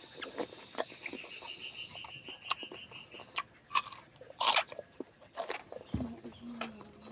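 Close-up biting and chewing of kinilaw, raw milkfish and squid with crunchy cucumber and onion, as a run of short crunches and clicks. A rapid high pulsing trill runs for about two seconds near the start, and a low drawn-out animal call begins about six seconds in.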